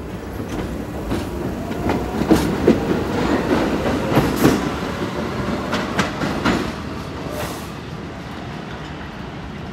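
New York City subway train pulling out of the station, its rumble broken by a run of sharp clicks as the wheels pass over rail joints. The sound dies away near the end as the train leaves.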